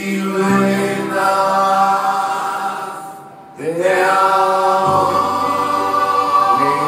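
A man singing into a hand-held microphone, holding two long wordless notes. A short break comes about three and a half seconds in, between the two notes.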